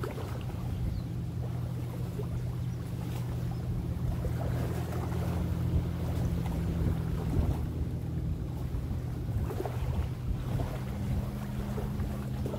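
Lakeshore ambience: small waves lapping and wind, over a low, steady hum from a distant engine.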